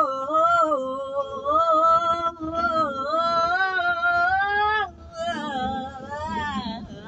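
A man singing wordless, drawn-out notes in a high voice, the pitch sliding and wavering, with short breaks about one and two and a half seconds in. In the last two seconds the notes become shorter, quieter and more broken.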